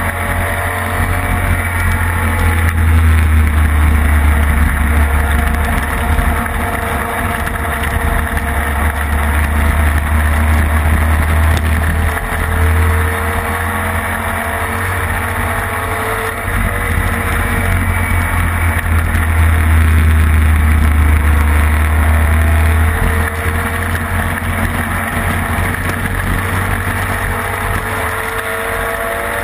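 Classic racing sidecar's engine running hard at speed on track, its pitch rising and falling several times through the lap, over a heavy low rumble.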